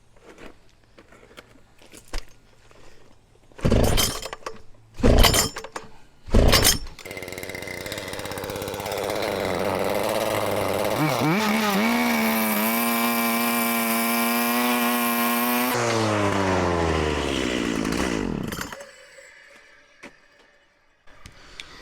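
Small pull-start petrol engine being started: three hard pulls on the recoil starter, then it catches, revs up and runs steady at high speed for a few seconds before slowing and dying away.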